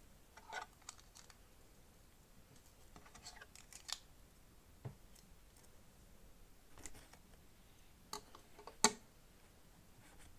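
Lego plastic plates clicking and tapping as a tan plate is handled and pressed onto a black plate: scattered short clicks, a dull knock about halfway through, and the sharpest click near the end.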